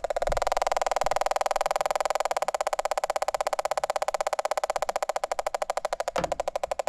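Handheld combustible gas leak detector sounding its tone as a rapid, even train of beeping ticks, about a dozen a second.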